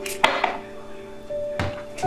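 Background instrumental music with long held notes, over which a sharp light knock sounds about a quarter-second in, with a smaller one just after and a duller knock near the end: kitchen utensils or a bottle being handled against the table or bowl.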